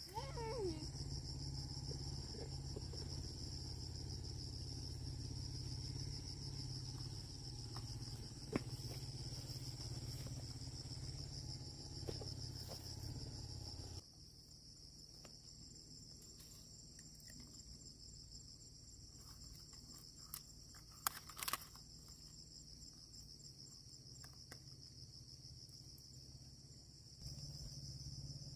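Steady high-pitched chirring of field insects, with a low rumble under it that drops away about halfway through. A few soft clicks and rustles come and go as peanut plants are handled.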